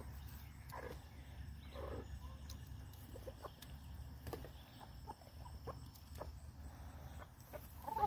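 Goats and chickens feeding at a wooden trough: faint, scattered light taps and clicks of pecking and nibbling on the wood, with two short soft animal calls about one and two seconds in and a louder call at the very end.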